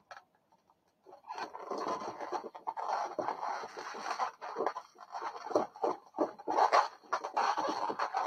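Inflated latex modelling balloons squeaking and rubbing against each other as they are woven together by hand. It is a busy run of irregular squeaks and scrapes that starts about a second in.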